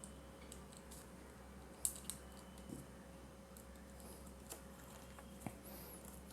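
Faint scattered clicks and handling noise of small plastic parts and a screwdriver as an electrical plug top is assembled and its screws tightened, over a low steady hum.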